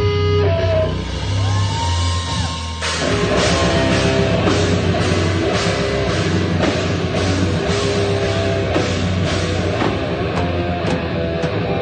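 A rock band playing live and loud. It opens with held guitar notes that bend in pitch, then about three seconds in the drum kit and full band come in with a driving, steady beat.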